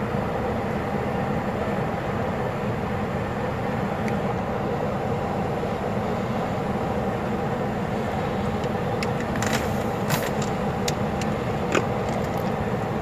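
Military helicopter on the ground with its engine running and rotor turning, a steady, even drone. A few short clicks come about two-thirds of the way through.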